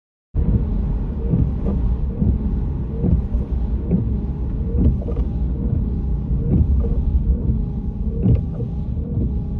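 Car interior road noise while driving at speed: a steady low rumble of tyres and engine, with light knocks about once a second. It cuts in abruptly.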